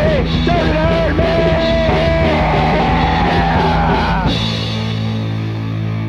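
Punk rock band playing, with a bending lead line over drums and guitars. About four seconds in the band stops and a single distorted electric guitar chord is left ringing.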